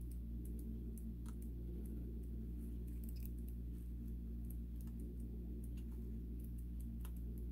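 Paper pages of a guidebook being leafed through: faint, scattered rustles and small clicks over a steady low hum.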